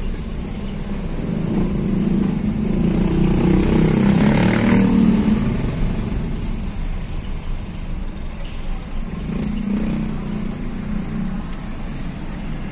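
Road traffic heard from inside a car: a steady low engine rumble, with passing vehicles swelling louder about four to five seconds in and again briefly near ten seconds.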